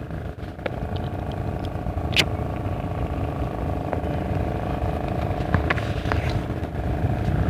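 A motor engine running with a steady hum, slowly growing louder. A single sharp click about two seconds in.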